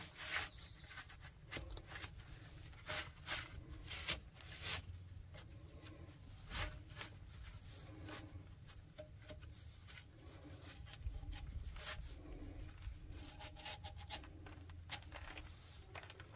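Scattered faint clicks and knocks with light rubbing, as small metal and rubber parts are handled.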